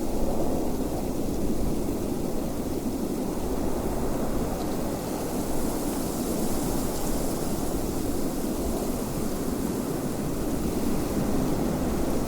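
Steady wind blowing, a deep, even rush with faint hiss above it.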